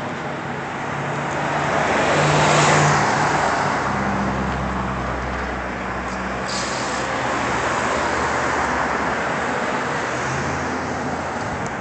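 Road traffic: a steady wash of passing vehicles, with one passing loudest about two to three seconds in and engine hum underneath.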